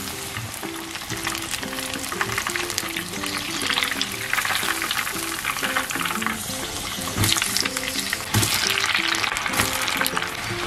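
Food deep-frying in a small pan of hot oil: a dense crackling sizzle that swells in louder spells around the middle and toward the end. Light background music plays underneath.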